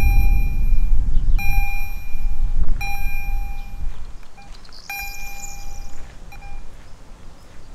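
Level-crossing warning bell sounding a ringing ding about every second and a half, then stopping about five seconds in. A low rumble under it fades away over the first few seconds.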